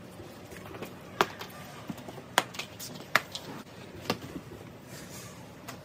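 A few sharp clicks and knocks, four louder ones about a second apart among fainter taps, over a low steady background.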